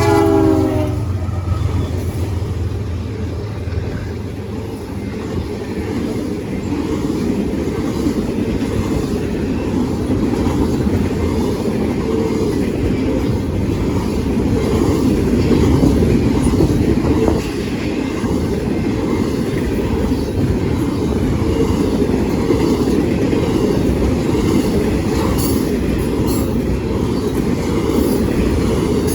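Freight train passing close by: its horn sounds and ends about a second in, then the cars roll past with a steady rumble and clickety-clack of wheels over rail joints.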